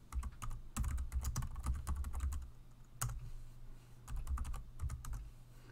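Computer keyboard typing in quick bursts of keystrokes: a run of key presses, a single louder key strike about three seconds in, then another short burst about a second later.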